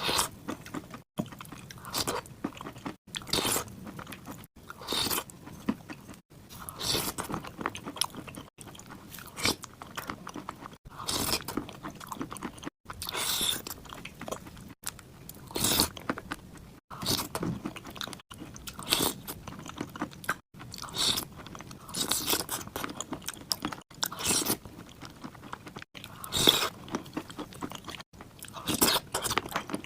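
Close-up crunching and chewing of dry clay chunks, with repeated bites and crunches and brief silent breaks every second or two.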